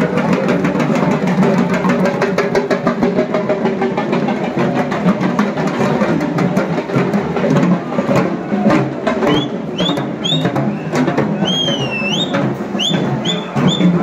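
Procession music with fast, dense drumming. From about two-thirds of the way in, a shrill whistle is blown in short upward chirps, one of them wavering.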